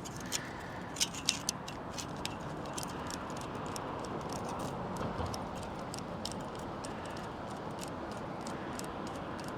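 Metal hose clamp being slid over and worked onto the antenna mast pipe: a string of small, sharp metallic clicks and ticks at irregular intervals over steady background noise.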